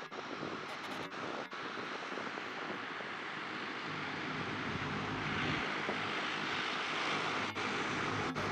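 Twin turboprop engines and propellers of a Bombardier Dash 8 Q300 airliner running steadily, then growing louder and fuller about halfway through as power comes up for take-off.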